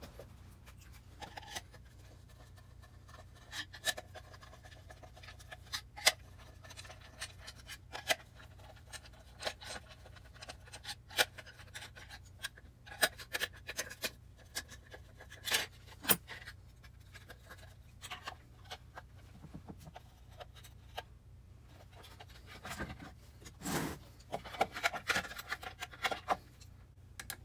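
A screwdriver working inside a hollow plastic droid head: scattered sharp clicks, taps and scrapes of metal on plastic as the screws of the inner column are worked loose, busier near the end.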